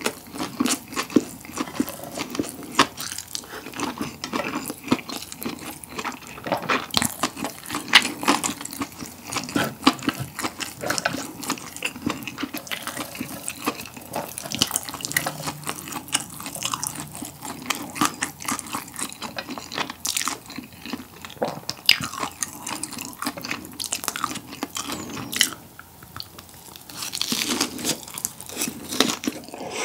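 Close-miked wet chewing and lip-smacking of chewy spicy jjolmyeon noodles and pork cutlet, with many small clicks. Near the end, a longer hissing stretch as a mouthful of noodles is slurped in.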